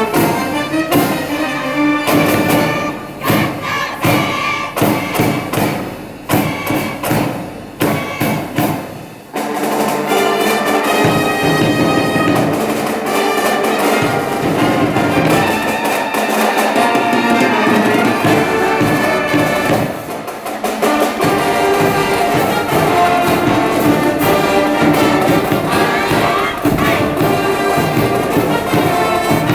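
A high school brass band plays a baseball cheering tune, with trumpets and other brass over drums. It opens on sharp, punched beats, then after about nine seconds moves into full, held brass chords.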